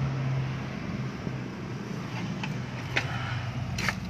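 A steady low motor hum, with several sharp clicks in the second half.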